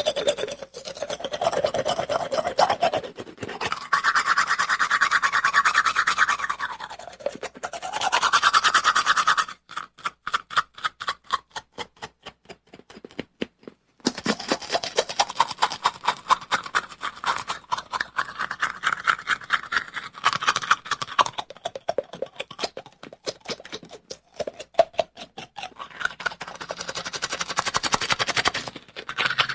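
Teeth being brushed with a toothbrush in quick back-and-forth scrubbing strokes, the scrubbing shifting up and down in pitch. About ten seconds in, the strokes turn fainter and more widely spaced for a few seconds, then pick up again.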